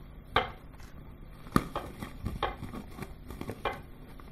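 Kitchen knife cutting Granny Smith apple on a plastic cutting board: a run of irregular taps, with two sharper knocks among them.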